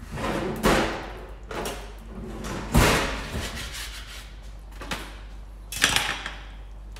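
Metal baking tray and metal slotted turner clattering on a stainless-steel worktop while naan breads are turned over on the tray. It is a string of knocks and scrapes, the loudest clank about three seconds in and the turner set down on the steel bench near the end.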